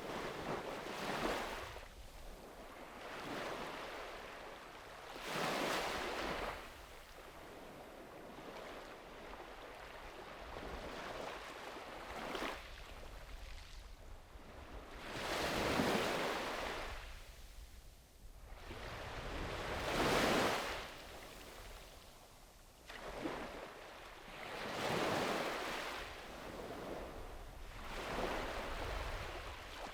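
Sea waves breaking and washing up the beach, one surge after another every few seconds, each swelling and fading away; the two biggest come a little past halfway.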